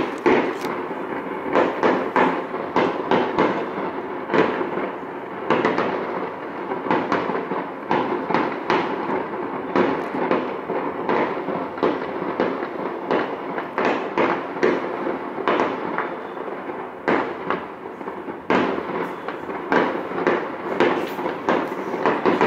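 Fireworks display going off: a dense, irregular run of bangs and crackling bursts, several a second, without a break.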